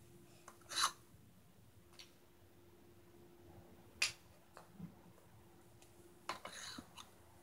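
Wooden rings and blocks of a Melissa & Doug geometric stacker clacking as they are handled and set down: a few separate knocks, the sharpest about four seconds in, and a short cluster near the end, over a faint steady hum.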